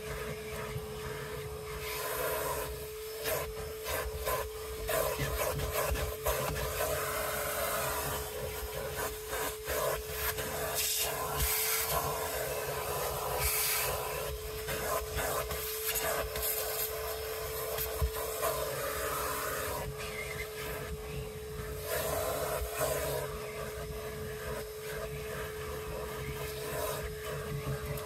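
Rubbing and scrubbing against a surface, coming in irregular bursts, over a small motor running with a steady whine.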